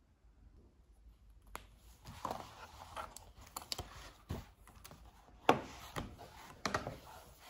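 Irregular rustling and clicking of objects being handled by hand, with a sharp knock about five and a half seconds in.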